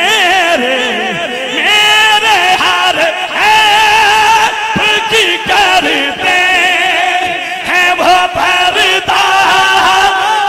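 A man singing a naat, a devotional Urdu-Punjabi hymn, unaccompanied into a handheld microphone, in long ornamented held notes that waver and glide, with short breaks for breath.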